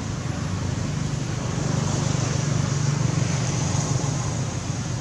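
Steady low outdoor rumble with hiss, swelling through the middle and easing off near the end.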